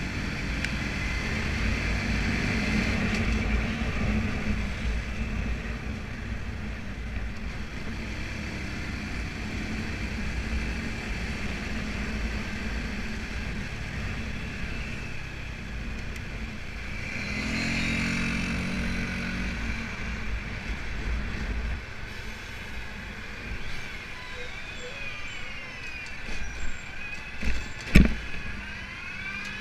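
Motorbike engine running while riding through traffic, with steady wind and road noise. The engine note grows louder for a few seconds about two-thirds of the way through. A few thumps come near the end, the sharpest about two seconds before the end.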